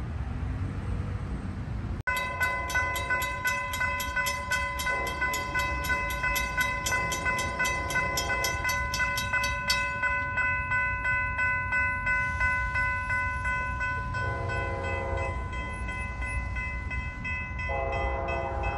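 Railroad crossing warning bell ringing in rapid, even strokes while the crossing is activated. An approaching train's horn sounds faintly twice and then in two louder blasts in the last few seconds.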